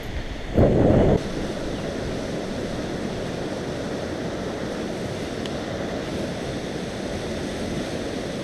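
Steady rush of wind on the microphone and water streaming past a moving boat, with a louder blast of wind about half a second in that drops away a moment later.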